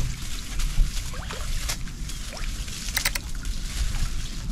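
Handling noise from a turtle trap being hauled up and checked: a quick run of clicks and rattles about three seconds in, over a steady low rumble.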